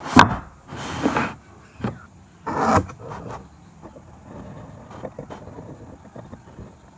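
Hand tools working wood: a sharp knock, then two short scraping strokes about a second and a half apart with a knock between them, followed by fainter light tapping.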